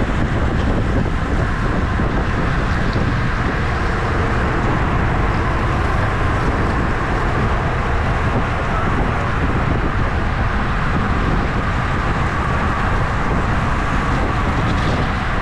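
Steady wind noise rushing over the microphone of a camera on a moving bicycle, with a constant low rumble.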